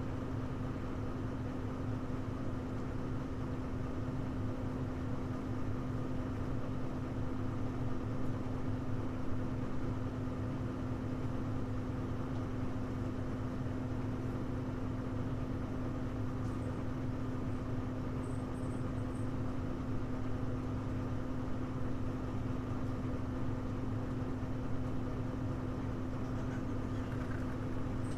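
Diesel engine of a Hino U-HU2MLAA city bus heard from inside the cabin: a steady drone with a constant hum that does not change pitch. This bus is known among fans as an odd-noise car, though its running sound is fairly subdued.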